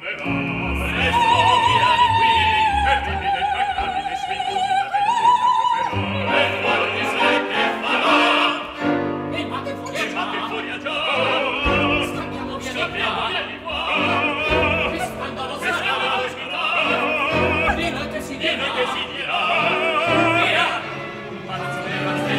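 Opera singing with orchestra: a long held note with wide vibrato in the first few seconds, then several voices singing over the orchestra.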